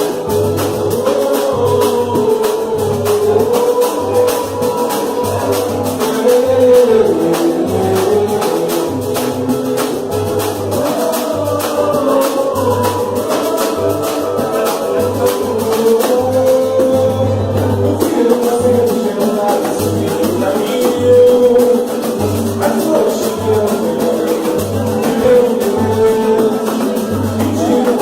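Live samba band playing, with steady low drum beats, fast shaker-like percussion and a melody that sounds sung.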